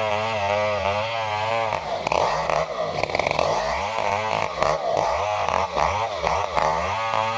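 Stihl 070 two-stroke chainsaw running at high speed. From about two seconds in, its engine pitch repeatedly dips and recovers as the chain bogs under load cutting into the durian log, then steadies again at the end.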